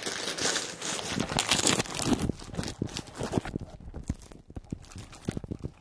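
Clear plastic wrapping crinkling as it is handled on a tripod's carry bag. After about two seconds it gets quieter, with scattered light clicks and taps.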